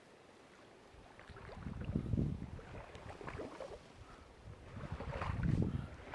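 Legs wading through creek water, sloshing and splashing in two surges, the first about a second in and the second around five seconds in.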